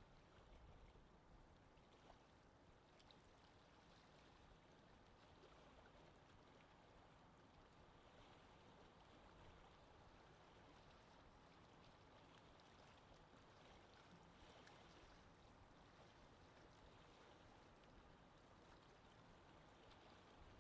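Faint, steady wind noise with no gusts or distinct events.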